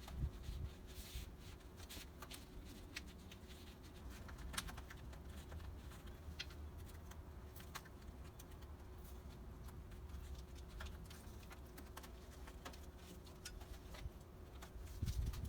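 Light rustling and scattered small clicks, like hands handling material, over a steady low hum.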